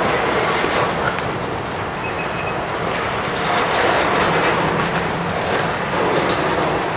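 Covered hopper cars of a long CSX grain train rolling past, with the steady noise of steel wheels on the rails and a few sharp clicks.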